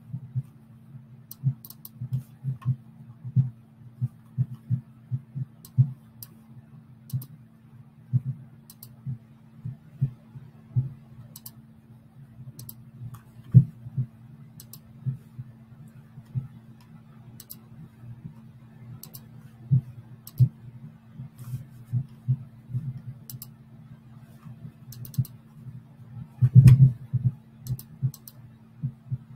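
Typing on a computer keyboard: irregular key taps and clicks over a steady low hum, with one louder knock a little before the end.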